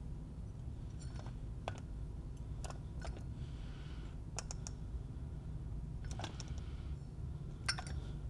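Light metal clicks and clinks, about eight spaced unevenly, as steel rocker arms are set one by one onto the valves of an R53 MINI Cooper S cylinder head, over a steady low hum.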